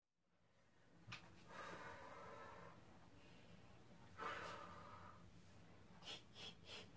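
Faint, heavy breathing from a woman: two long, slow exhales as if breathing through a labor contraction, then a few soft ticks near the end.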